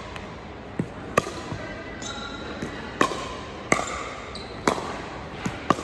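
Pickleball rally: the hollow, perforated plastic ball popping off paddles, about seven sharp pocks at uneven intervals.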